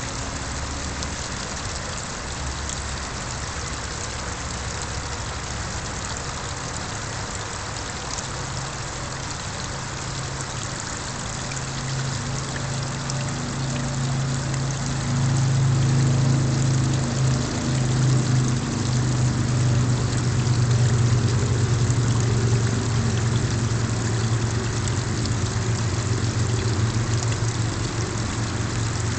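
Small garden-pond waterfall splashing steadily, with a low engine hum that swells from about halfway through and becomes the loudest sound.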